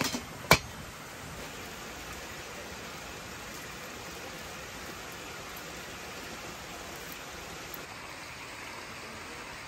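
A copper pot lid clacks down once onto the pot about half a second in, then a steady rushing background noise.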